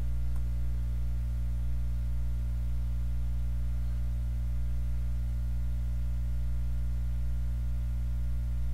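Steady electrical mains hum, a low buzz with a ladder of evenly spaced overtones, holding constant throughout.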